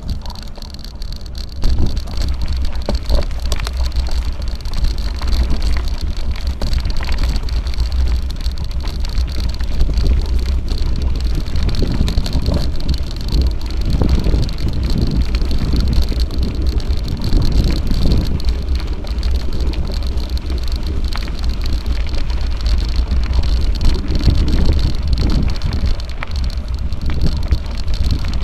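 Mountain bike riding along a gravel and dirt track, tyres crunching over the surface with small knocks and rattles from the bumps, under a heavy wind rumble on the microphone.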